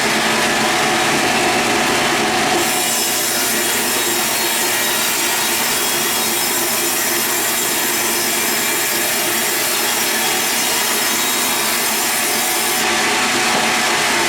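Sawmill saw cutting steadily through a log, a continuous loud rasping hiss of blade in wood; the high hiss grows brighter a few seconds in and drops back near the end.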